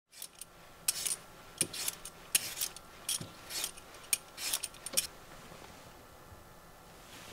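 Vegetable peeler scraping the skin off a raw potato in a quick run of short strokes that stops about five seconds in.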